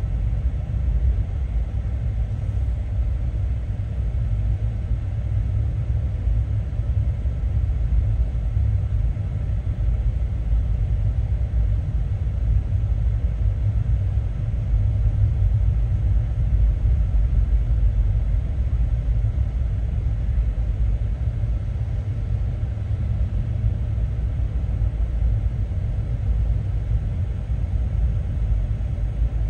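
BNSF garbage train of container cars rolling steadily past a grade crossing, heard from inside a waiting car: an even, unbroken low noise from the wheels on the rails, with no horn.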